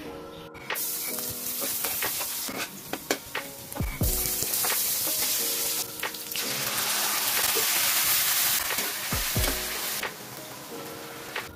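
Chopped garlic and red onion sizzling in hot oil in a wok, the hiss coming in loud stretches of a few seconds, with sharp taps and clicks of a utensil against the pan. Background music plays under it.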